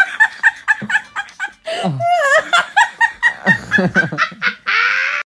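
Laughing in quick rhythmic bursts, with a wavering high squeal about two seconds in. A short burst of noise follows near the end, then the sound cuts off abruptly.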